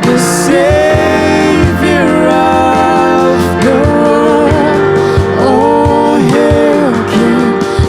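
A worship song: a vocalist singing long held phrases over a band accompaniment.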